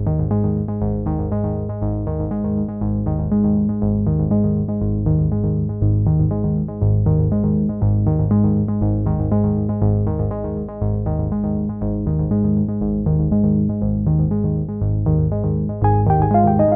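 Background music: an electronic keyboard tune of short repeated notes in a steady rhythm.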